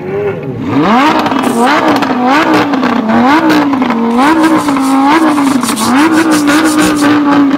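Vroom engine-revving noise played along with a toy diecast car pushed by hand across a wooden table. Its pitch sweeps up about a second in, then rises and falls over and over like an engine being revved.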